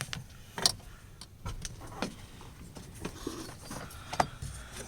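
Irregular light clicks and knocks of tools and metal parts being handled, several separate sharp taps over a few seconds.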